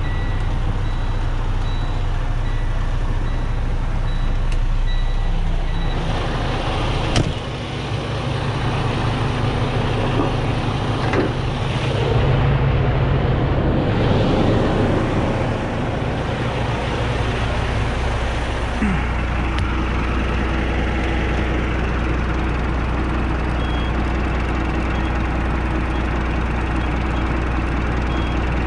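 Freightliner 122SD truck's diesel engine idling steadily. A short beep repeats through the first several seconds, and there is a sharp click about seven seconds in.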